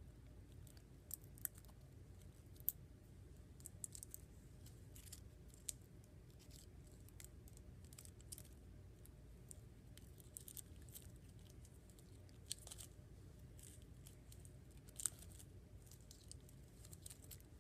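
Near silence with faint, scattered small clicks and crackles of a pencil being picked and pulled apart by hand.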